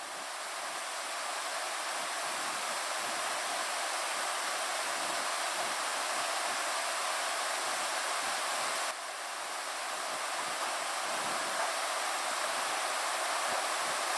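Steady, even hiss of room tone in a quiet hotel-style room, with a brief dip about nine seconds in before it builds back up.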